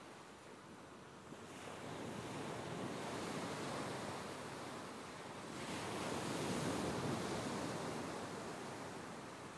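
Ocean surf washing onto a beach, with a steady wash of noise that swells twice: once from about a second and a half in, and again from about six seconds in.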